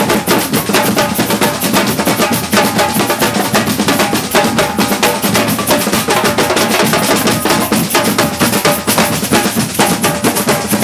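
Batucada percussion ensemble playing a fast, dense samba groove: snare drums (caixas) struck with sticks, bigger bass drums (surdos) and a metal jingle-frame shaker (chocalho), loud and continuous.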